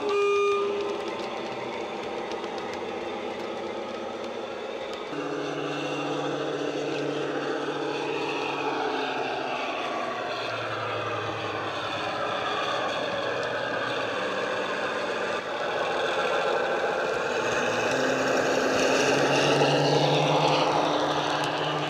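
Dapol Class 52 Western model's sound decoder playing diesel-hydraulic engine sound through its small speaker. A horn note ends just after the start. The engine note steps up about five seconds in and again near the end, and grows louder as the model passes close.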